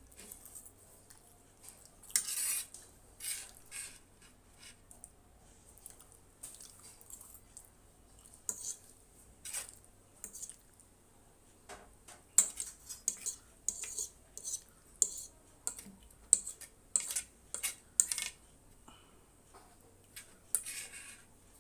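Cutlery clinking and scraping against a dish of Maggi noodles in irregular short strokes, densest about halfway through.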